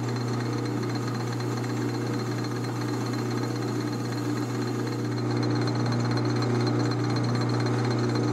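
Metal lathe running, its motor and drive giving a steady low hum while a parting tool cuts off a threaded bolt in the chuck; the sound gets a little louder about five seconds in.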